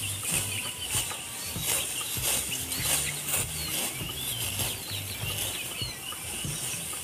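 Birds chirping, with a low hum underneath.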